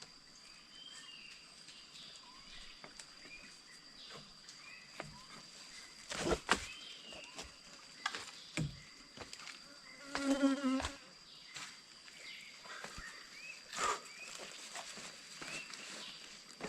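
Insects droning steadily on one high note, with scattered short rising chirps, a few sharp knocks and a brief pitched call about ten seconds in.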